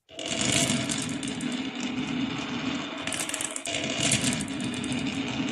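Many marbles rolling and clattering down a wooden HABA marble-run slope in a dense, continuous rattle of small clicks that starts suddenly.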